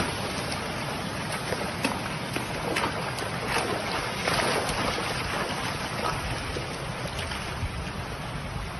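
Steady rush of water flowing over a flooded low causeway.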